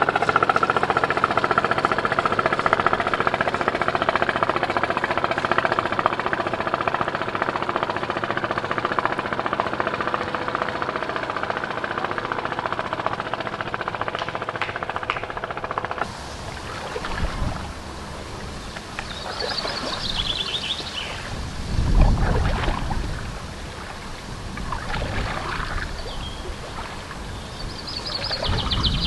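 A sailboat's engine runs steadily as the boat motors past, a sound with several held tones. It cuts off abruptly a little over halfway through. After that come gusts of wind on the microphone and a few bird chirps.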